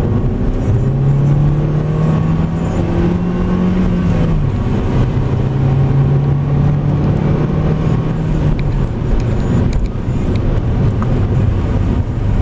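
Car engine running with road and tyre rumble, heard from inside the car while driving. The engine tone rises over the first few seconds, drops about four seconds in, holds steady, then falls lower near the end.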